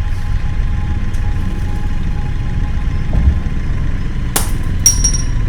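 Car engine idling with a steady low rumble. Near the end come two sharp clicks about half a second apart, the second ringing briefly.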